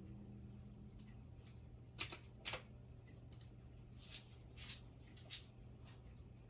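A computer mouse clicking several times, with the two sharpest clicks about two seconds in, half a second apart. Softer clicks follow near the end. A faint low steady hum runs underneath.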